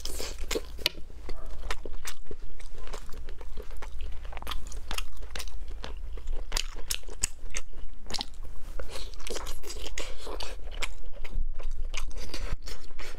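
A person chewing and biting braised pork belly with dried bamboo shoots close to a lapel microphone, a dense, irregular run of sharp mouth clicks.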